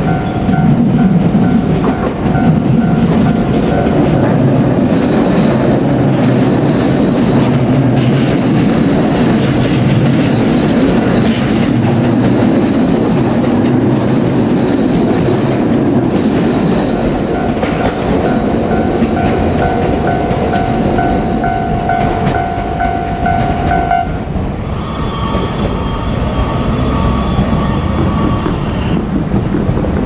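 JR Kyushu 787-series electric train rolling slowly past with a steady low rumble of wheels on rail. A level-crossing warning bell rings with a repeating electronic tone over the first few seconds, and again from a little past the middle until about three-quarters through. Near the end a different, higher-pitched tone sounds for a few seconds.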